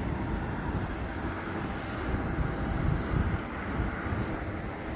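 Two McDonnell Douglas F-15C Eagles approaching in formation, their jet engines heard from a distance as a steady low rumble.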